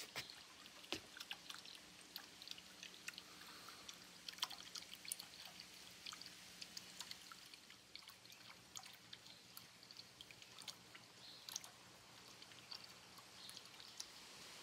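Faint trickling and dripping of water from a small garden fountain: many small irregular drips and patters over a light hiss, with a faint steady low hum underneath.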